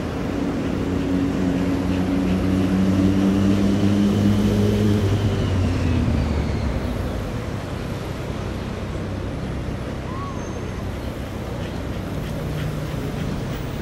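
Single-engine turboprop droning overhead, a low steady propeller hum that drops in pitch and fades about five seconds in as the plane passes and climbs away. Road traffic noise runs underneath.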